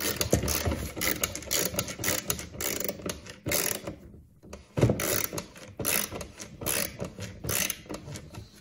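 Rapid ratcheting clicks as the F-150 fog light's spring-loaded aiming screw is turned with a bit driver back into its plastic clip, with a short pause just before the middle.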